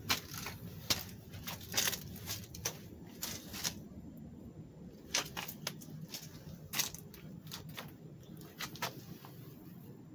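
Irregular crackling and rustling: many short, sharp crackles scattered at uneven intervals over a low steady rumble.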